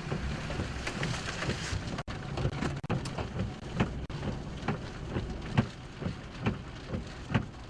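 Storm rain pelting a vehicle's body and windshield: irregular sharp taps of big drops over a steady rushing hiss and low rumble.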